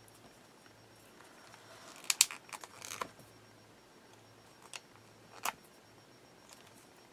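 Small paper pieces being handled by hand: a cluster of crisp crinkles and clicks about two seconds in, then two single sharp ticks a little past the middle.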